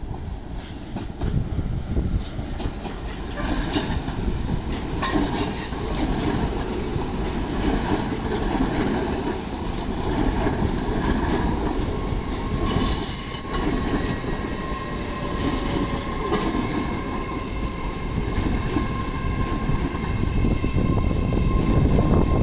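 A train running through the station: a steady low rumble of wheels on rails, with brief high-pitched wheel squeals twice, about five seconds in and again around thirteen seconds.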